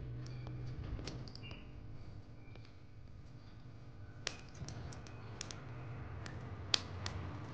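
Small sharp plastic clicks and ticks as a snap-off utility knife picks at the break-tab on the lid of a plastic cleaning-paste tub. A few faint handling ticks come first, then clicks from about four seconds in, the loudest near the end, over a faint low hum.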